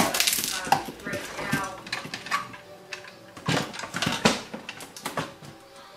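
Blue plastic electrical box being pushed and worked into a cut-out hole in a panel: a run of sharp plastic knocks, clicks and scrapes, loudest at the start and again around the middle.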